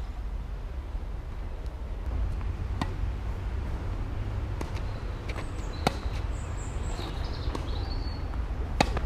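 Tennis ball struck by racket strings during a rally: a few sharp pops, one faint about three seconds in and two loud ones about six and nine seconds in, over a steady low wind rumble on the microphone.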